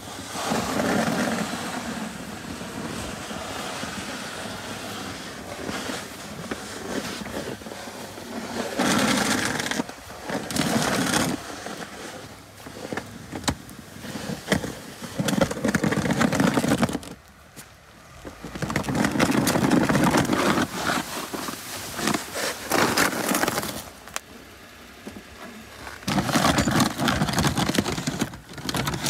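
Jeep Wrangler with a homemade snow plow driving and pushing snow, the blade scraping along the driveway, in several bursts with short lulls between them.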